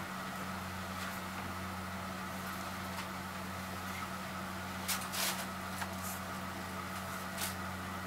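Steady low hum under faint hiss, with a few brief dry scrapes about five seconds in and again near the end, fitting the steel points of wing dividers being dragged along vegetable-tanned leather to scribe a line.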